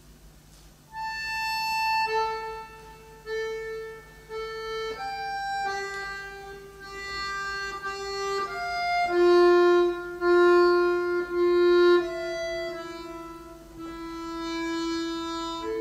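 A slow solo instrumental melody of long held notes, one note at a time, starting about a second in and stepping gradually downward in pitch.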